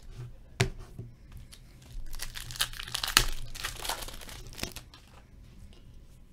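Plastic wrapper of an Upper Deck Portfolio hockey card pack being torn open and crinkled by hand. A sharp click comes a little over half a second in, and the loudest crackling tear comes about two to five seconds in.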